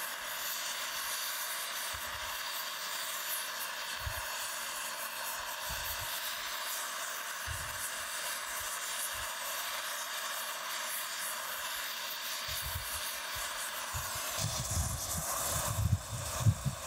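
Gas brazing torch flame hissing steadily while a brazing rod is fed into a crack in a cast-iron steam chest casting. In the last couple of seconds a low rumble joins, with a few sharp knocks.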